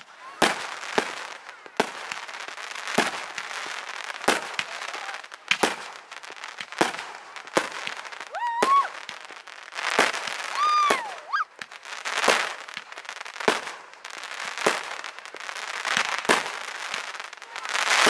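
Fireworks display: aerial shells bursting in quick succession, a sharp bang about every second over a steady crackle, with a couple of short whistling glides midway.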